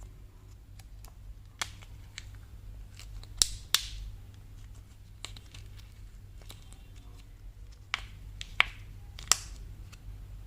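Candy packaging being handled and unwrapped: irregular sharp crackles and clicks of wrapper and plastic, a few much louder snaps among them, over a steady low hum.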